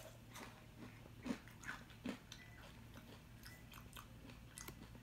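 A person chewing a crunchy Takis rolled tortilla chip: faint crunches about every half second for the first two seconds, then fewer and quieter ones.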